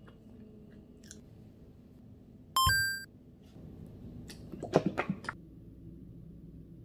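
A short electronic chime sound effect about two and a half seconds in. Then, around five seconds in, a quick cluster of clicks and squelches from a plastic squeeze bottle of French's yellow mustard being opened and squeezed.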